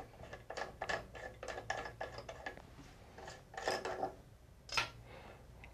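Faucet valve being unscrewed and worked out of a two-handle faucet body: a quick run of small metal clicks and scrapes, then a few separate louder knocks in the second half.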